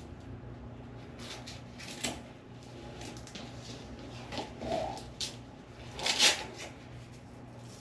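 Fabric exercise straps being handled and fastened around the ankles and legs: soft rustles and short scratchy strap sounds, the loudest about six seconds in, over a low steady hum.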